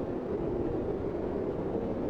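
Blizzard wind: a steady, low rushing noise with no separate gusts or other events.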